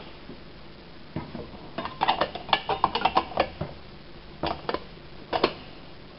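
Kitchenware clinking: a quick run of light metallic clinks and rattles starting about two seconds in and lasting over a second, then a few more clinks near the end.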